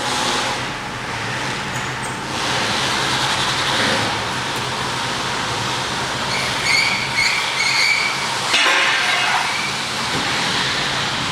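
A 1993 Chevrolet Caprice station wagon pulling away with its engine running and its tyres rolling. About two-thirds of the way in come three short high squeaks, then a brief crunch as a tyre runs over a piece of tubing.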